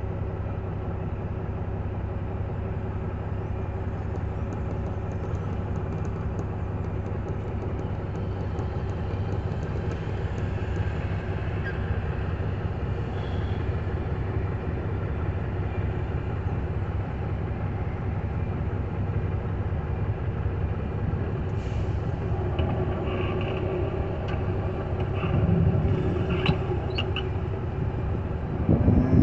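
A vehicle's engine idling steadily, heard from inside the cab while standing in stopped traffic, with passing traffic around it; it grows a little louder near the end.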